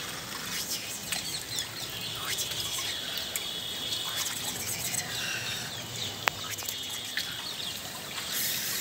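Wet outdoor ambience on a rainy day: water dripping and trickling on concrete, with birds chirping, and one sharp click about six seconds in.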